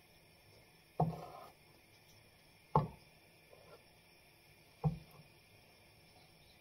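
A metal ladle knocking three times against a bowl of pancake batter as the batter is stirred, about two seconds between knocks; the first knock rings briefly.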